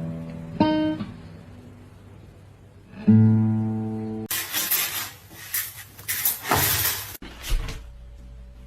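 Acoustic guitar: single plucked notes and chords that ring out and fade, then a few seconds of loud, noisy sound that cuts off abruptly.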